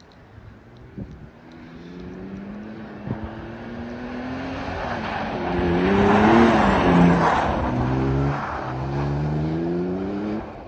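Toyota Tacoma pickup with its cat-back exhaust chopped off, accelerating past. The engine note climbs in pitch and is loudest as the truck goes by about six seconds in, then drops once and climbs again as it pulls away.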